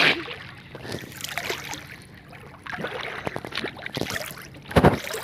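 Water splashing and sloshing as a boy swims and ducks under the surface, with a loud splash right at the start and another near the end.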